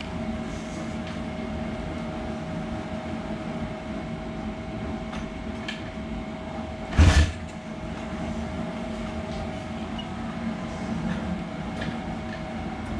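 The freshly rebuilt big-bore four-stroke single of a 2019 SSR 170TX pit bike (62 mm kit, PE28 carburetor) idles steadily on its first start after the rebuild. It gives one short, loud blip of revs about halfway through and another right at the end.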